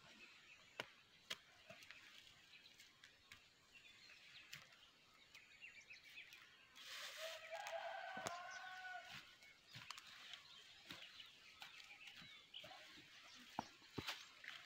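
Near silence broken by faint, scattered knocks and scrapes of a broad knife blade digging small planting holes in dry soil. About seven seconds in, a rooster crows faintly for about two seconds.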